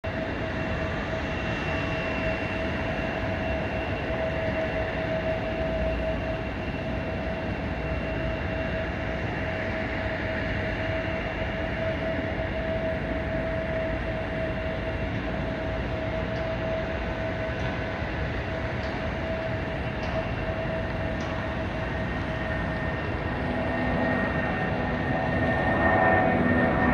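Boeing 757 freighter's jet engines running at a distance: a steady rumble with a constant whine on top. Near the end the sound grows louder and more whining tones join in as the jet powers up for takeoff.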